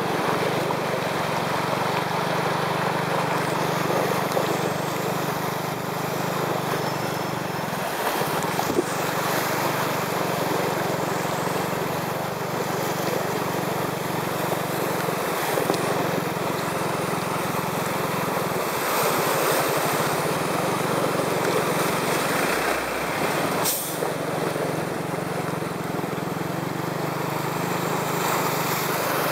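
Car driving slowly through floodwater, heard from inside the car: a steady engine hum under the continuous swish and splash of water churned up by the tyres. One sharp click near the end.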